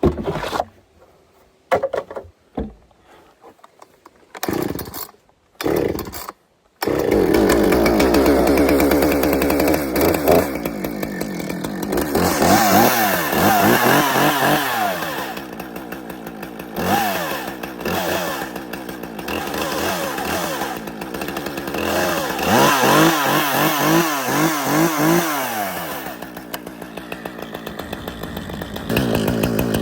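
Gas chainsaw: a few short sounds, then the saw running loud from about seven seconds in, its engine note repeatedly dipping and rising as it cuts through a tree stump close to the ground.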